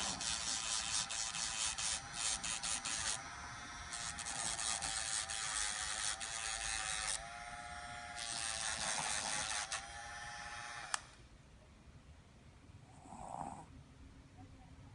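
Electric nail grinder running in a steady whine, with a coarser grinding hiss in spells as it is pressed to a dog's nails, switched off with a click about eleven seconds in. Afterwards a pug snores faintly, with one short snort-like breath near the end.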